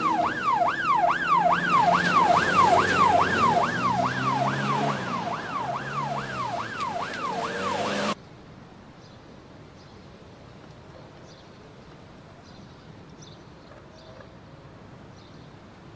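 Police car siren sweeping quickly up and down, about two and a half times a second, over the car's engine as it races along. It cuts off suddenly about eight seconds in, leaving only faint background noise with a few light ticks.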